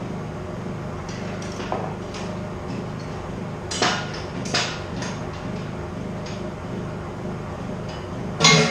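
Hand tools clinking and knocking on metal as a motorcycle engine is worked on. There are a few sharp metallic knocks, two around the middle and the loudest near the end, over a steady low hum.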